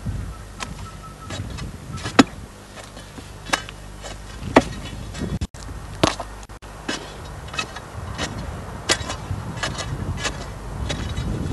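Irregular sharp knocks of a hand digging tool striking hard earth and roots, about ten blows spread over several seconds, with scraping of soil between them.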